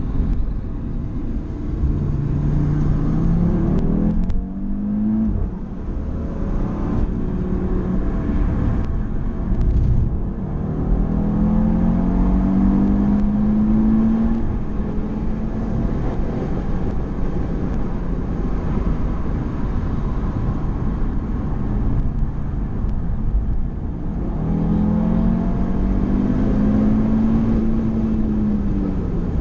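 Car engine heard from inside the cabin on a race track, accelerating hard several times with its pitch climbing, broken by short dips where gears change, then easing off near the end. Steady tyre and wind rumble runs underneath.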